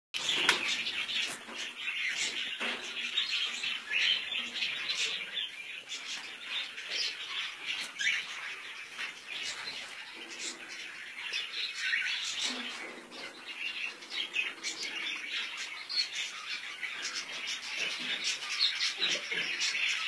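A dense chorus of many caged pet birds chirping at once: short, high, overlapping calls that never stop.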